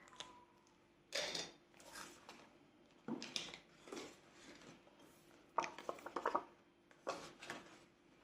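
Paper banknotes and envelopes being handled: a series of short, quiet rustles and light clatters, about eight in all, as cash is slid in and out of envelopes.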